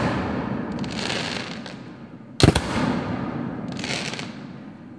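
Aerial fireworks display: a sharp shell burst about two and a half seconds in and another at the very end, each followed by a long rumbling tail, with spells of high crackling between the bursts.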